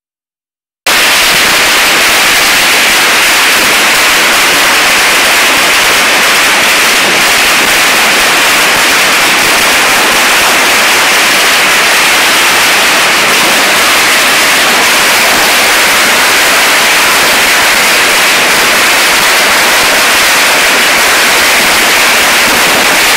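Loud, steady static-like hiss that cuts in suddenly about a second in and holds at an even level, with no separate bangs standing out.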